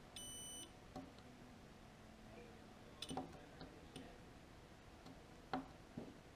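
Multimeter continuity beeper giving one short high beep of about half a second near the start, the sign that the probes have found a closed circuit across the switch contacts. Then a few light clicks and taps of the probes and the switch being handled.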